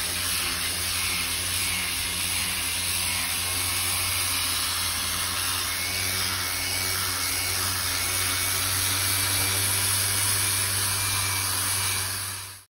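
Electric power sander running steadily against a boat keel, grinding off old antifouling paint. It cuts off suddenly near the end.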